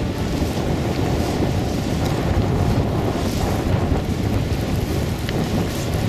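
Blizzard wind blowing hard and buffeting the camera microphone: a steady, heavy rumble of wind noise.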